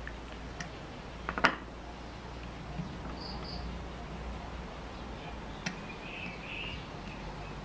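Small clicks and taps of brass standoffs and stripboard being handled and pressed together, the sharpest about a second and a half in. A bird chirps twice briefly a little after three seconds and again around six seconds.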